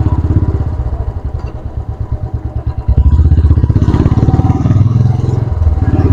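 Royal Enfield Classic 350's single-cylinder engine running under way. Its separate beats slow and soften over the first three seconds as the throttle eases off. About three seconds in it opens up and runs louder and steadier.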